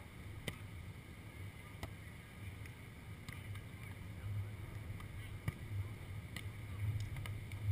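Wind rumbling on the microphone in low, uneven gusts, with a few faint sharp knocks from volleyball hits during a beach volleyball rally.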